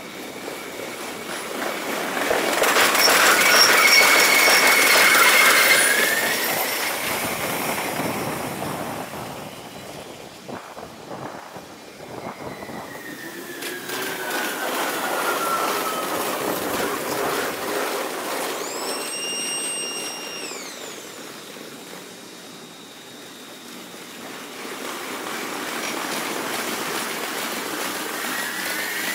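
Kintetsu electric trains passing, heard at five times normal speed so the sound is raised in pitch and compressed in time. The loudest pass comes a few seconds in, and further passes swell around the middle and near the end, with whining tones that slide in pitch.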